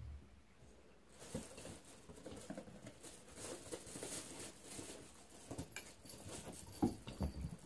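Faint, irregular rustling and small knocks as a cat noses and paws through a pile of bags and clutter, with a sharper knock near the end.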